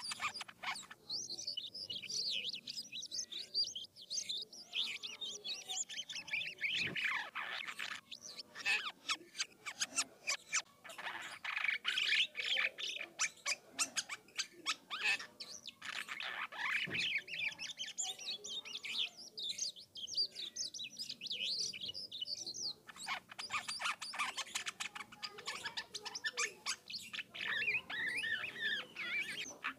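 Coleto (Sarcops calvus) in full continuous song: a rapid, varied stream of clicks, chatter and short gliding whistled notes with no real pauses.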